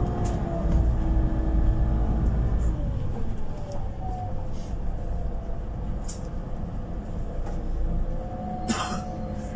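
City bus driving, heard from the front of the passenger cabin: engine and drivetrain rumble with a whine from the drive that falls in pitch about three seconds in as the bus eases off. A short hiss of air comes near the end.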